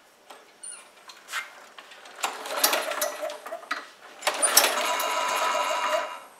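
Briggs & Stratton lawnmower engine pull-started twice, firing and running for a second or two each time before dying. It is slow to keep running because it is flooded.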